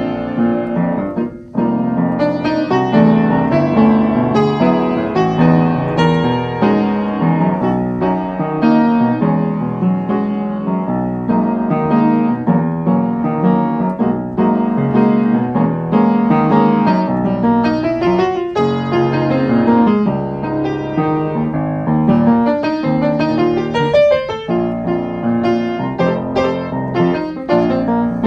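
Piano music: a continuous flow of struck notes and chords, with a brief break about a second in.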